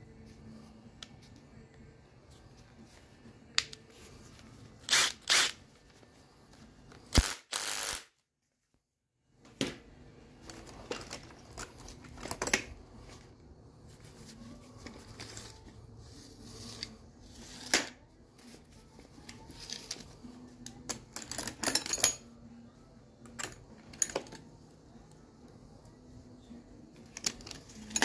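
Tools being handled and set in and out of a tool bag: scattered clicks, knocks and light metal clinks, with a few louder clusters of rattling. Among them are a cordless impact driver and a tape measure turned over in gloved hands.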